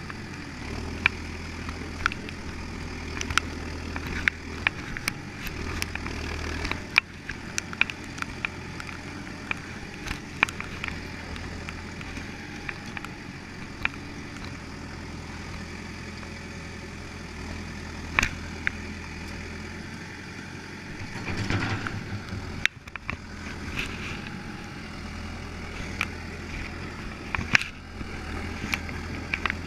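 Tractor engine running steadily, with scattered clanks and knocks over it and a louder rush of noise about two-thirds of the way through.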